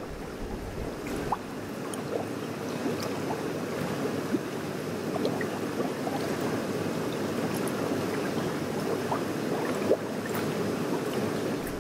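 Steady rushing, gurgling water, dotted with small quick bubbling blips.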